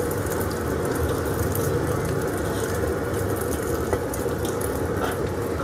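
Steady low roar of the gas burner under a heavy steel wok, with an egg frying in oil in the wok and a faint tap or two of the metal spatula near the end.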